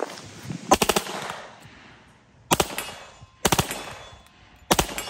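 Reising Model 50 .45 ACP submachine gun firing on full auto in four short bursts of a few shots each, the first, about a second in, the longest.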